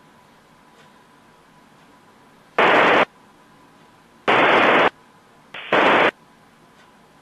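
Three abrupt bursts of FM radio static, each about half a second, from an Icom IC-746PRO receiver tuned to the International Space Station's amateur-radio downlink. Between the bursts a low hiss with a faint steady tone.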